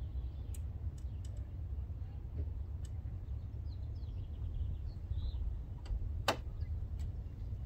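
Outdoor ambience: a steady low rumble with faint bird chirps and a few sharp clicks, the loudest click about six seconds in.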